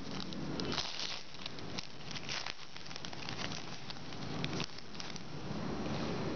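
Trading-card pack wrapper being torn open and crinkled by hand, with irregular crackling and rustling.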